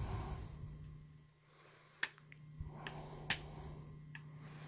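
Metal pick prying at a small steel E-clip on a plastic knob: light scraping and a few sharp clicks, the clearest about two seconds in and a little after three seconds.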